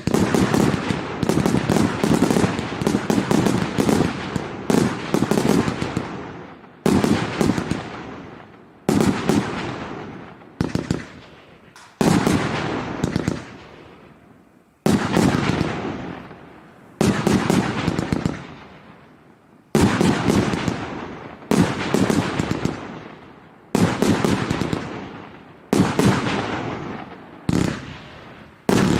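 A 238-shot firework cake firing in volleys. Each volley is a rapid run of shots that dies away before the next one starts, about every two seconds.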